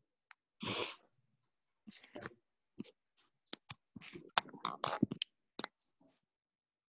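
Irregular clicks and short rustling noises picked up by a just-unmuted video-call microphone, thickest in the middle seconds, with a brief high beep near the end.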